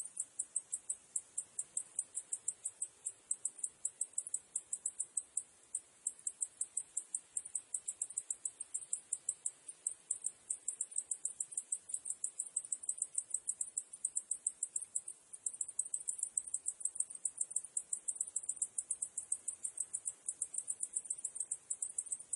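Cicadas calling in a steady stream of rapid, even, high-pitched pulses, about five a second.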